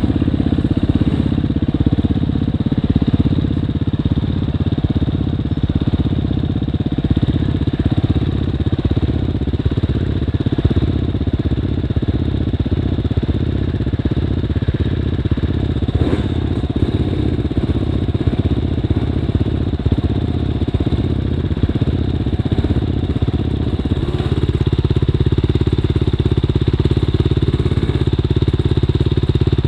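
Off-road motorcycle engine running steadily, with a brief knock about halfway through.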